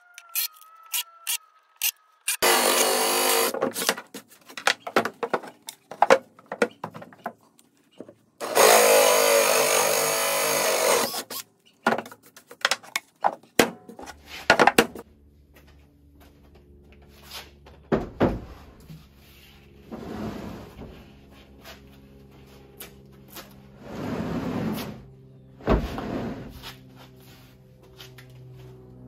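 Cordless drill-driver whining in short runs and driving screws into plywood, with several longer, louder bursts of power-tool work on the wood. From about halfway on, background music with a few faint tool noises under it.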